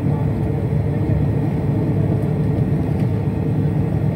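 Airport apron bus running, heard from inside the passenger cabin: a steady low rumble of engine and road noise.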